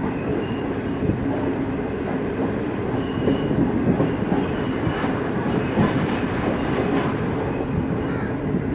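Karakoram Express passenger train moving along the track, with wheels knocking and clattering over the rails in a steady run of noise.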